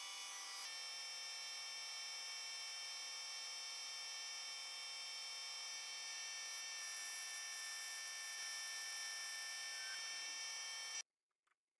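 Small metal lathe running at steady speed while turning a round bar, with a steady whine of many tones. The whine cuts off suddenly near the end.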